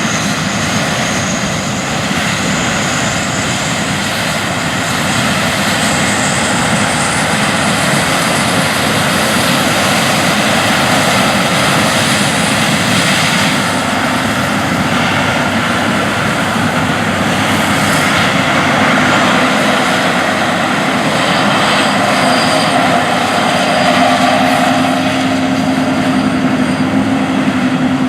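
John Deere S690 combine harvester running steadily in the field: continuous engine and machinery drone, with a low hum growing clearer in the last few seconds.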